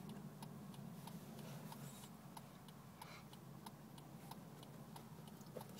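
A car's turn-signal flasher ticking steadily and faintly, with a low steady hum underneath.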